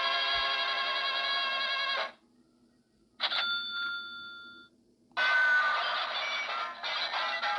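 Sound effect machine playing canned effects one after another. A steady electronic ringing tone cuts off suddenly about two seconds in, a bell-like ring follows a second later and fades, and a busier, noisier effect starts about five seconds in.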